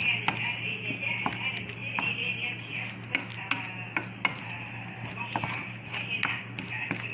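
Wooden spoon stirring and scraping baked beans and egg around a frying pan, with irregular clicks and knocks of the spoon against the pan over a steady low hum.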